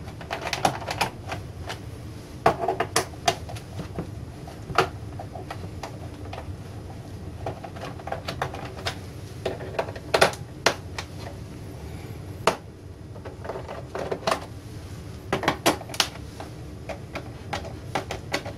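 Hand screwdriver backing screws out of the plastic rear cover of a ViewSonic VG730m LCD monitor. Irregular clicks and taps of the screwdriver, screws and hands against the plastic housing, some in quick clusters.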